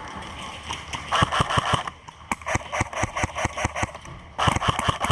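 Airsoft guns firing: a rapid burst about a second in and another near the end, with scattered single shots between.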